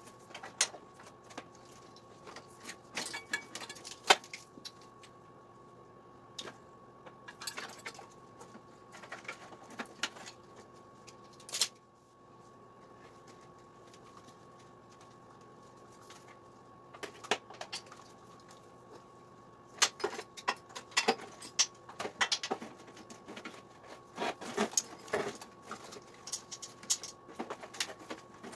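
Scattered clicks, rattles and light knocks of hands working a moped's wiring harness and plastic connectors, in clusters with a quieter stretch in the middle. A faint steady hum runs underneath.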